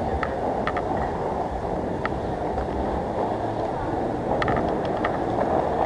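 Inline skate wheels rolling on rough asphalt: a steady gritty rumble with a few sharp ticks scattered through it.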